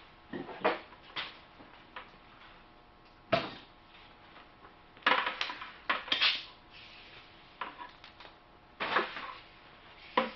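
Irregular knocks, clinks and scrapes of metal tools and saw parts being handled on a workbench, with several louder clatters spaced a few seconds apart.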